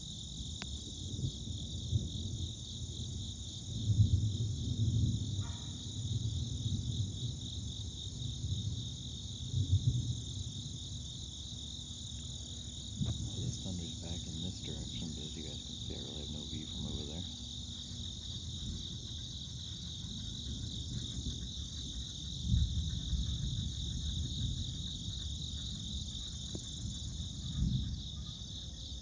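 Long, low rumbling of thunder that swells and fades several times, over a steady high drone of chirping insects.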